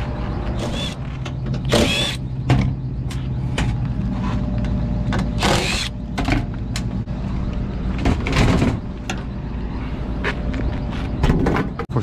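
Milwaukee 12-volt cordless impact driver backing out the access-panel screws of a rooftop air-conditioning unit in several short whirring bursts, over a steady low machinery hum.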